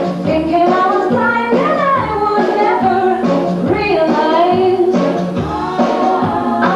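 Stage-musical song: voices singing a melody over band accompaniment, with a bass note repeating about once a second.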